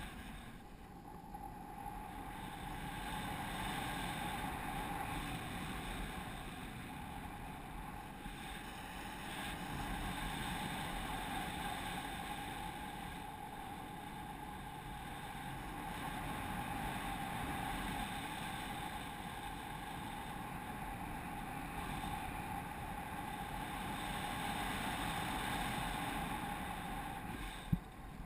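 Wind rushing over the microphone of a camera carried in paraglider flight, steady and slowly swelling and easing. There is a short sharp knock near the end.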